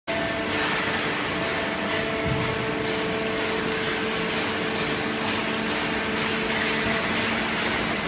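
Hydraulic OCC (waste cardboard) baler and its feed conveyor running: a steady machine din with a constant hum of several steady tones.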